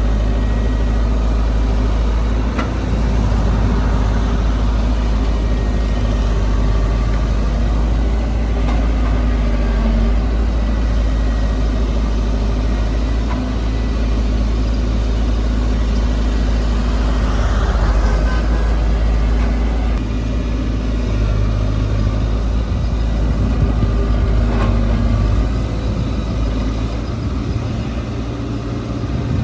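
Heavy diesel machinery engines running: a steady deep rumble that swells louder a little past halfway.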